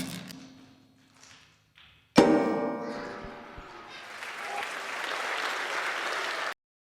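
A loud, ringing musical chord strikes about two seconds in and dies away, then audience applause builds and cuts off abruptly.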